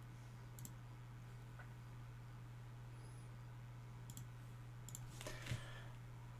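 Quiet room tone: a steady low hum with a few faint, sharp clicks spread through it, and a slight rustle near the end.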